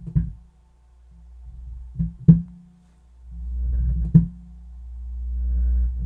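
Small Infinity test speaker driven by a faulty Miller and Kreisel MX-125II subwoofer amplifier, thumping about every two seconds with a low rumble swelling up between the thumps. The repairer puts this down to a DC offset or low-frequency oscillation in the amplifier.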